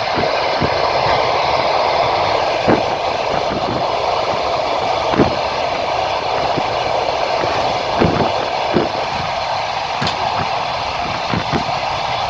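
Train wheels rolling on the rails with a steady rumble. Single knocks of the wheels crossing rail joints come at irregular gaps of one to three seconds.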